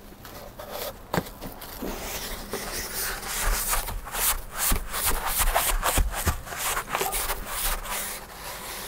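Hands rubbing and pressing a sheet of sound-absorbing foam against a fiberglass ceiling to stick it onto double-sided tape: a run of short, scratchy rubbing strokes that get busier and louder in the second half.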